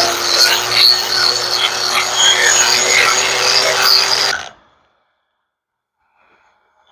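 Corded angle grinder with a shaping disc grinding into wet wood: a steady motor whine over a gritty rasping. It cuts off suddenly about four and a half seconds in.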